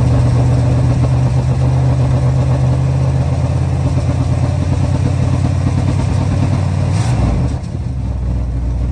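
1977 Chrysler Town & Country's 440 V8 idling steadily, heard at the tailpipe, running off a gas can after a fuel-filter and fuel-line repair. About seven seconds in, the engine note changes and settles to a lower, slightly quieter idle.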